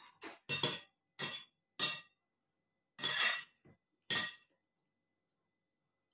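Spoon and cutlery clinking against plates while eating: a handful of short, ringing clinks over the first four seconds or so.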